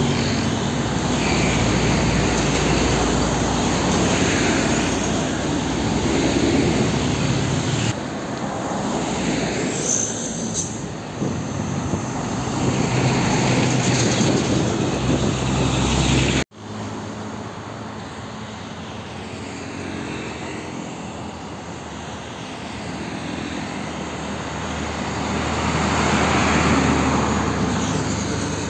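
Heavy diesel trucks and other road traffic passing close by, engines running steadily with tyre noise. The sound breaks off abruptly about halfway through, then quieter traffic builds again as another truck approaches and passes near the end.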